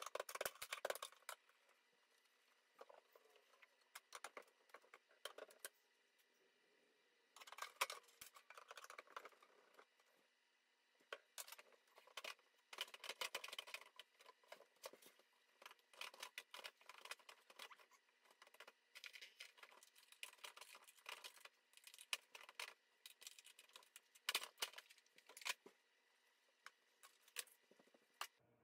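Faint, scattered clicks, taps and scrapes of tools and cabinet drawers and doors being handled, in short clusters with pauses between.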